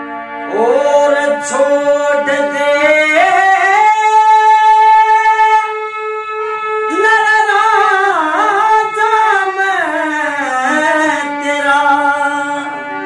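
A man singing a Haryanvi ragni over a harmonium's steady reedy chords. His voice comes in with a rising swoop about half a second in and holds a long note. After a brief dip around the middle it returns with a wavering, ornamented run, and near the end the harmonium carries on alone.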